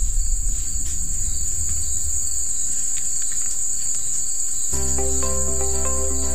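A steady, high-pitched insect chorus trilling without a break. A low rumble fades out in the first second or so, and music with sustained chords and a bass line comes in about three-quarters of the way through.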